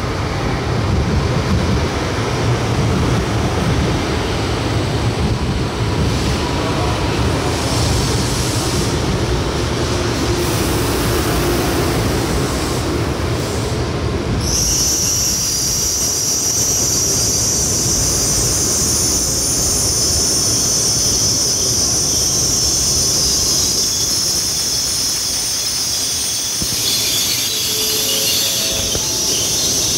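N700S 9000-series Shinkansen train rolling into the platform on arrival with a low rumble. About halfway through, a steady high-pitched squeal sets in as it brakes and slows, and it continues almost to the end.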